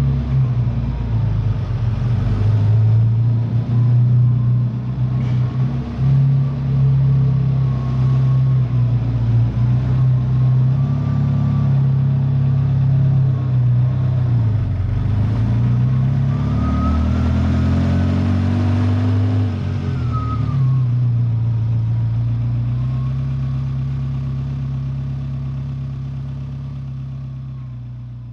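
Ferrari F40's twin-turbo V8 running at fairly steady revs, briefly dropping and then climbing through a rising rev about two-thirds of the way in before settling back to its steady note. The sound slowly fades toward the end.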